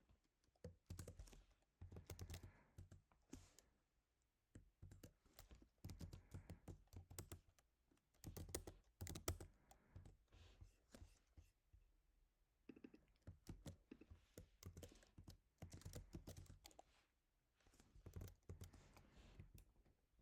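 Computer keyboard typing: bursts of rapid keystrokes, each lasting a second or two, with short pauses between them.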